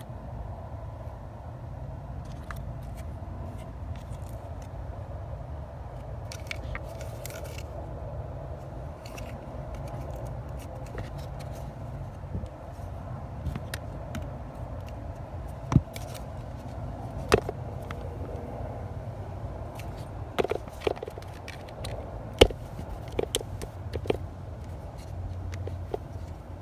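Scattered clicks, taps and scraping of objects being handled, with several sharp knocks in the second half, over a steady low hum.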